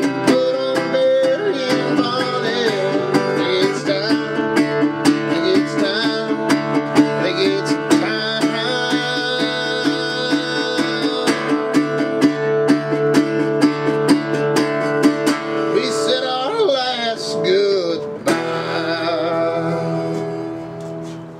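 Metal-bodied resonator guitar fingerpicked in a folk tune, quick plucked notes over a steady bass, with a few gliding notes about two thirds of the way through. It gets quieter near the end as the tune winds down.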